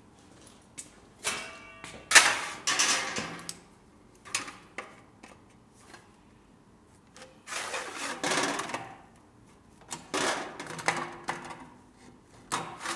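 Galvanised sheet metal handled on a steel sheet-metal folder and its tabs bent with pliers: a run of irregular scrapes, clanks and rattles of metal on metal, the loudest about two seconds in, with a brief metallic ring just before it.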